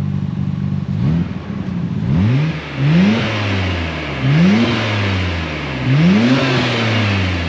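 Car engine idling, then revved in a series of about five throttle blips, each rising quickly in pitch and falling back more slowly toward idle.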